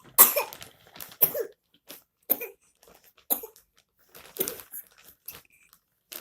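A young child coughing over and over, a series of short coughs about one a second. It is a put-on, mischievous cough rather than a sign of illness.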